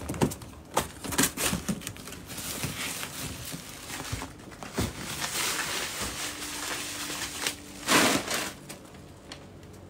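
Rustling of gift packaging and scattered clicks and knocks as a person handles things and gets up and moves about, with a louder rustle about eight seconds in.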